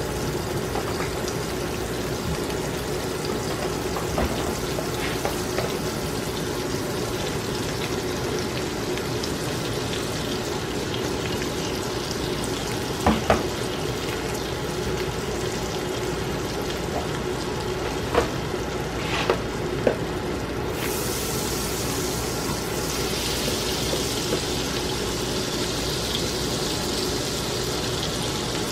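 Butter and pancake batter sizzling steadily in a hot nonstick frying pan. There are a few sharp knocks in the middle, and about two-thirds of the way in the hiss turns brighter.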